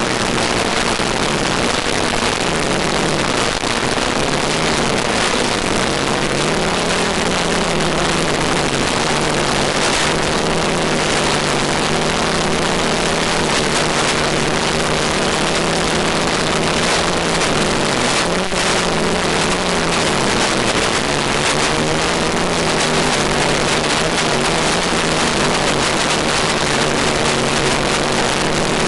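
ETFD2 multicopter's electric motors and propellers running in flight, a steady drone whose pitch drifts up and down with throttle, under a heavy steady hiss from the analog FPV downlink.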